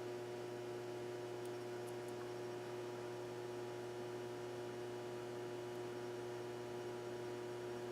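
Steady electrical hum, several even tones over a faint hiss, with nothing else happening.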